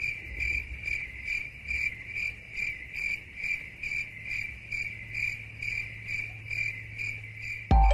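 Insect chirping: a regular high chirp about twice a second over a low steady hum, with electronic music cutting in loudly at the very end.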